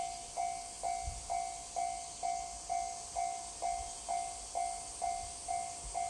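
Japanese railway level crossing's warning bell ringing steadily, about two dings a second, each struck sharply and fading: the crossing is active, warning of an approaching train.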